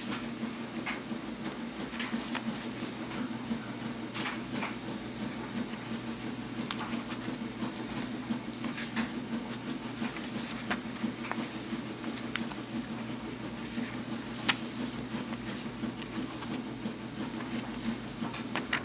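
Paper pages and cards of a handmade journal being handled and turned: soft rustles and light taps scattered throughout, with one sharper tap about three-quarters of the way through, over a steady low hum.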